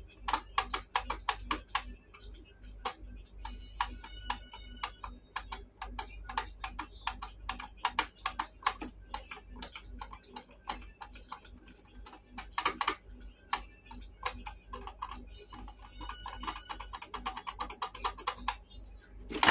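Rapid, irregular plastic clicks and taps, several a second, as fingers press on the plastic food-bowl tray of a toy bulldog biting game. The toy has no batteries in it yet, so the dog does not react.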